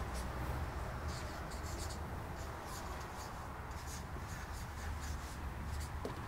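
Marker pen scratching and squeaking on flip-chart paper in short, irregular strokes as words are written, over a low steady room hum.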